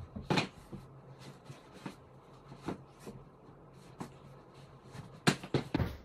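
Scattered soft knocks and rustling as climbing shoes are handled and pulled on, then a quick run of louder knocks near the end as the climber steps onto a plywood home bouldering wall and grabs its holds.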